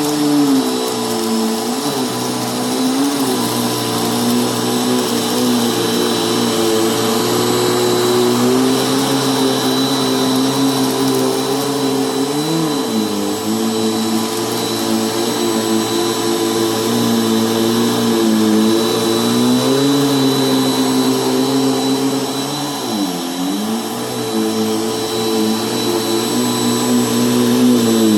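Bissell vacuum cleaner running steadily over carpet, its motor hum dipping briefly in pitch a few times, most deeply late on.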